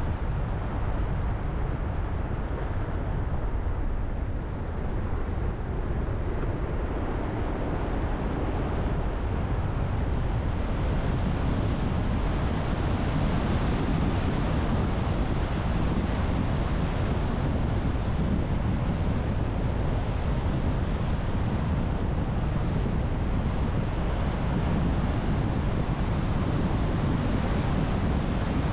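Car driving, with a steady rumble of road and engine noise and wind on the microphone; the noise grows a little louder about a third of the way through.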